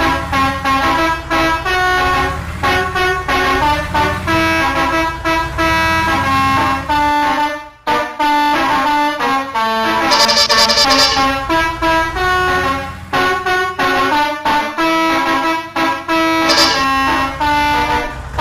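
Multi-tone 'telolet' bus horn playing a quick melody, its notes changing several times a second. It breaks off briefly about eight seconds in. Short high hisses come about ten and sixteen seconds in.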